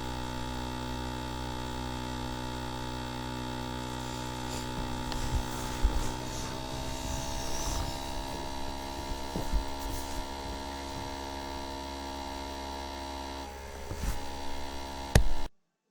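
Electric sanding machine running with a steady hum as it sands wooden posts, its pitch rising slightly about six seconds in, with scattered knocks and scrapes over it. A sharp knock comes just before the sound cuts off.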